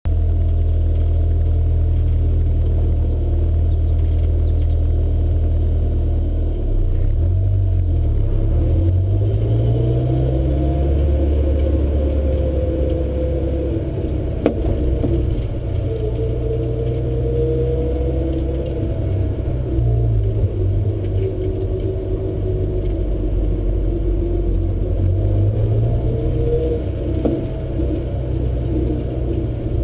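Honda S2000 driving over small bumps, its engine running and rising and falling in pitch. A sharp clunk from behind the driver's seat sounds about halfway through and again near the end: an unidentified rattle or knock that the owner is trying to trace.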